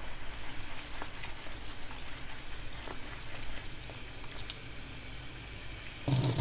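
Whole oats being rinsed: a soft, even crackling hiss of water running and draining through the wet grains, with a few small clicks. Near the end a tap suddenly runs louder.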